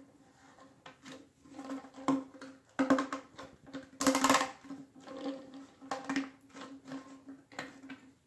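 Plastic handling noise from a P-trap with a corrugated flexible hose being bent and worked by hand: irregular clicks and knocks, and a crinkling burst about four seconds in as the hose is coiled, over a steady low hum.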